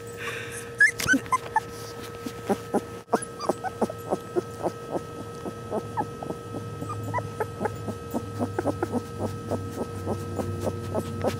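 Newborn Australian retriever puppies (Australian shepherd × golden retriever cross) making many short squeaks and soft whimpers, several a second, over a steady faint hum.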